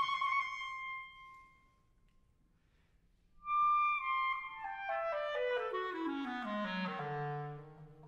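Background music: a solo wind instrument holds a high note that fades out, then after a pause of about two seconds plays a quick run of notes falling step by step, ending on a low held note.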